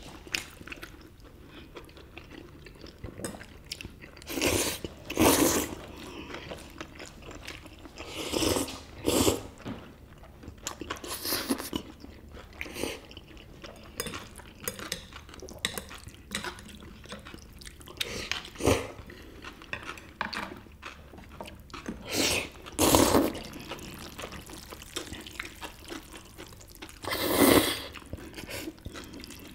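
Eating sounds: spicy mixed noodles slurped in about ten short bursts, with chewing and a sharp click of chopsticks or a dish in between. Near the end, a longer slurp as sauce is drunk from a tipped-up bowl.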